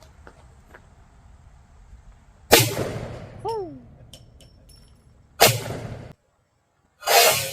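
Three gunshots, about three seconds apart, a few seconds in, mid-way and near the end. A short falling whine follows the first shot, and the sound drops out completely for a moment after the second.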